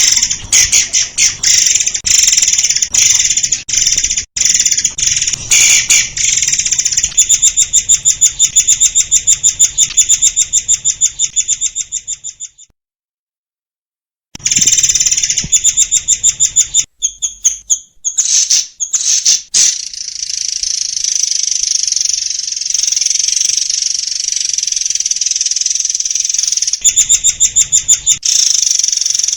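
Murai air singing in long, rapid trills of high, fast-repeated notes, broken by a silent gap of about two seconds near the middle, then a steadier high buzzing stretch before fast trills return near the end.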